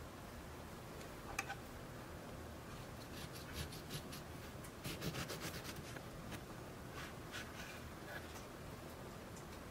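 Paring knife sawing through a lemon-glazed financier on a wooden cutting board: faint, scratchy clicks and rasps as the blade cuts the set icing and crumb, busiest about halfway through. A single sharp tick about a second in.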